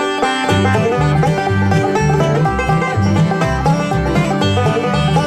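Instrumental opening of a banjo-led bluegrass/country song, with a walking bass line coming in about half a second in.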